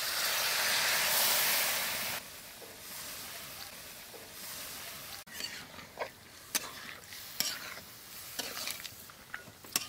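Liquid poured into a hot kadai of fried spiced goat intestine and potatoes, hissing loudly for about two seconds before dying down to a quieter sizzle. In the second half a metal spatula clicks and scrapes against the pan several times as the curry is stirred.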